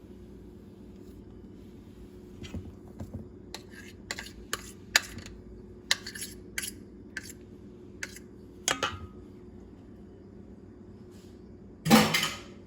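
A kitchen utensil clinking against a bowl and dishes in a string of sharp clicks and taps, then about twelve seconds in a loud clang of something dropped into the sink.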